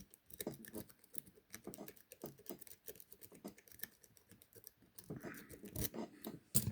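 Lock pick raking the pins of a large Tool Tech padlock under a tension wrench: a run of small, irregular metallic clicks, with a couple of louder clicks near the end.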